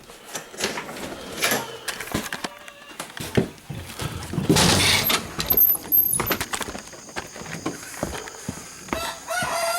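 Scattered knocks, clicks and clatter, with a louder rushing burst about halfway through. Near the end a rooster starts crowing, a held call that drops off.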